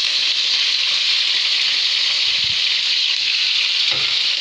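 Chicken pieces frying in hot ghee and oil with green chillies in a karahi: a steady, loud sizzle, with a couple of soft knocks from the pan.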